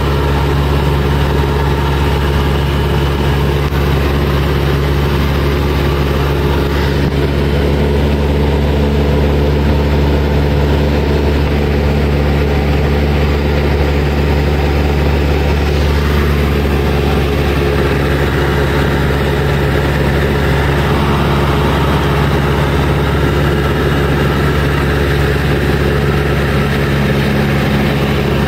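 Single-engine Cessna's piston engine and propeller running at a steady pitch in flight, heard from inside the cabin as an even, loud drone.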